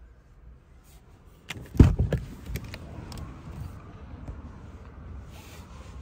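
Car door opening: a latch click, then a heavy thump about two seconds in, followed by a few lighter knocks and rustling as someone climbs out of the Hyundai KONA.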